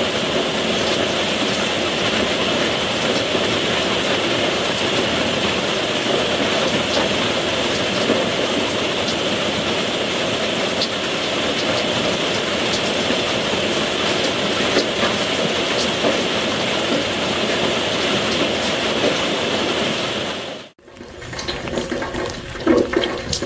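Steady rain falling, an even hiss of drops. About 21 seconds in the sound cuts out for a moment and comes back as closer, uneven splashing and dripping water.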